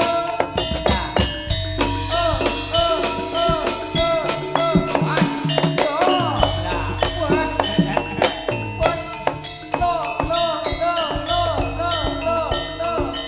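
Jaranan (jaran kepang) ensemble music: drums and gong-chime percussion beating a fast, dense rhythm over a low pulsing gong tone, with a high melody of short notes that bend up and down.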